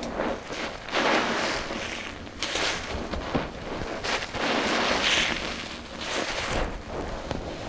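A soapy sponge squeezed again and again in thick lavender shampoo suds: wet squelching and foam crackle in several swells about a second long each.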